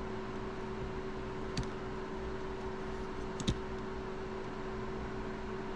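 Two faint small clicks, about a second and a half in and again about three and a half seconds in, from small tools and parts being handled while a phone's bottom board is taken out, over a steady low electrical hum.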